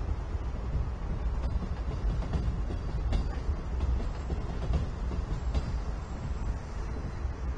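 A train running past on the tracks: a steady rumble with a few faint clicks.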